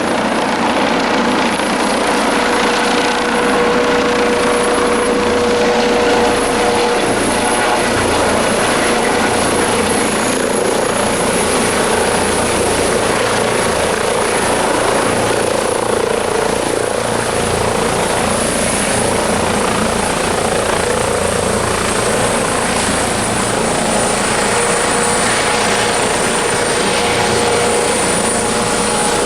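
Airbus Helicopters EC155B1 (H155) running loud and steady: dense rotor and turbine noise with a constant high-pitched turbine whine over it.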